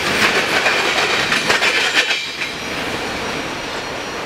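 Wheels of an empty covered-hopper freight train clattering over the rail joints as the last cars roll away, with a faint wheel squeal. About two seconds in, the clatter drops off to a quieter, steady rolling rumble as the train recedes.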